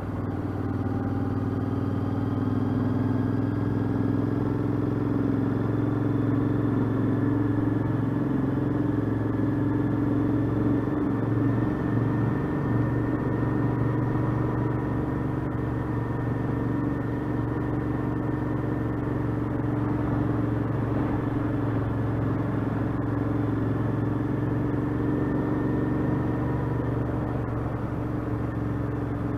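Royal Enfield Interceptor 650's parallel-twin engine running at a fairly steady road speed under way, with road and wind noise.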